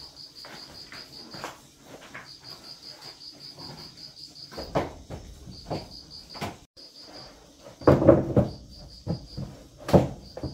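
Insect chirping in quick trains of evenly spaced high pulses. Irregular knocks and clatter of objects being handled sound over it, louder and denser in the last few seconds.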